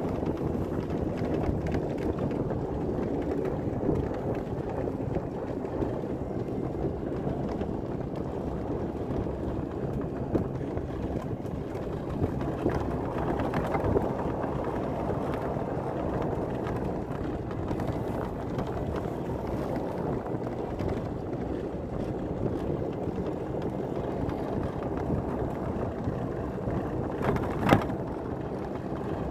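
Golf cart driving along a snow-covered road: a steady running noise of the cart with wind on the microphone, and a single sharp knock near the end.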